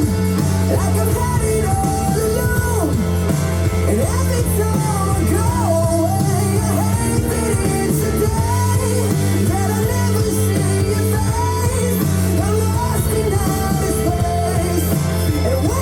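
Pop-rock song playing from a vinyl record, with a singing voice over band accompaniment.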